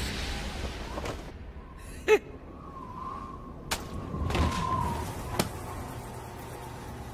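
Animated sound effects: a sharp falling zing about two seconds in, then two short sharp clicks a second or so apart, over a faint wavering high tone and a low hum.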